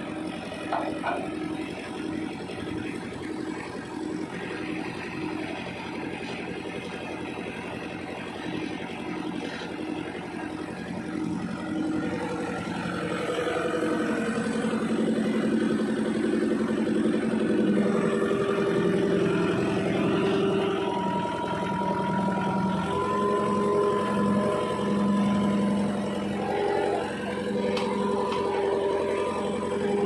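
Road roller's engine running with an even pulse, then revving louder from about halfway through as the machine is driven up the loading ramps onto a truck bed; a steady whine joins in near the end.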